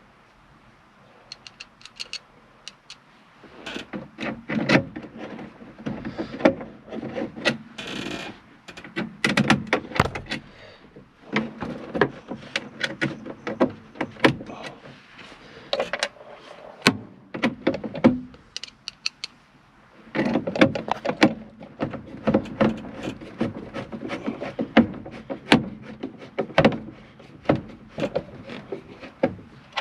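Hands and tools working on a truck cab's plastic dash panel while fitting clips and screws: many small clicks, knocks and rattles in busy runs, with a quieter spell in the first few seconds.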